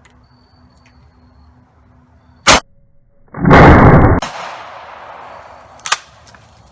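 12-gauge pump shotgun firing a custom shell loaded with a AA battery: a sharp crack about two and a half seconds in, then a loud blast a second later that trails off over about two seconds, and another short sharp crack near the end.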